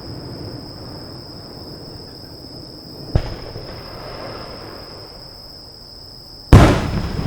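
Aerial firework shells bursting: a sharp bang about three seconds in and a louder one near the end, each followed by a rolling echo.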